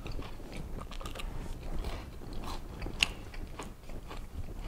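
Crunching and chewing of crispy double-fried chicken bites, with irregular crisp crackles and one sharper click about three seconds in.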